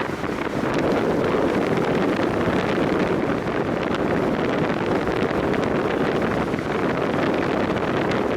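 Strong wind buffeting the microphone over the steady rush of big lake waves breaking on the beach.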